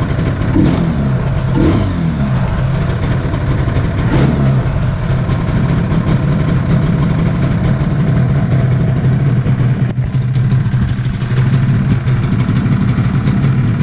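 Yamaha RD 350 two-stroke parallel-twin engine running: revved in quick blips about three times in the first few seconds, each falling back, then settling into a steady idle.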